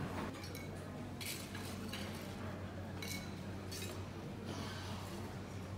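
Room tone of a lounge buffet: a steady low hum with scattered clinks of dishes and cutlery, a few of them ringing briefly.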